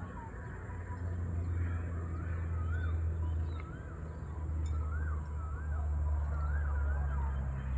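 A songbird singing the same short, wavy whistled phrase again and again, about once a second, over a steady low rumble.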